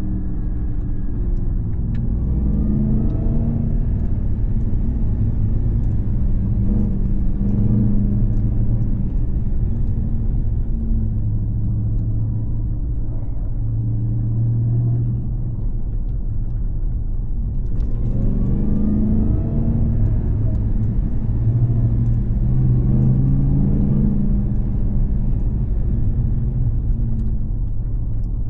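Supercharged 6.2-litre V8 of a Ram TRX pickup with an aftermarket SLP-resonator exhaust, running steadily under way with a deep rumble. Twice the engine pulls up through the gears, its pitch rising and stepping at each shift.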